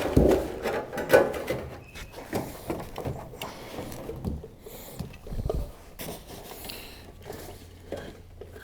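Scattered knocks, clicks and clatter of hands handling things, loudest in the first second or so, then lighter and sparser.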